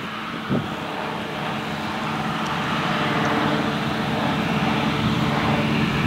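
Claas Lexion 600 TT combine harvester running steadily under load while cutting oilseed rape: a continuous engine drone mixed with the hum of the header and threshing machinery, growing slightly louder as it approaches.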